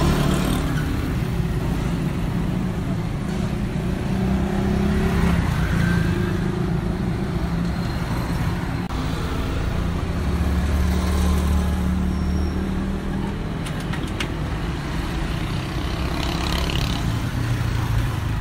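Street traffic: motor vehicle engines running and passing close by, a steady low rumble that swells and fades.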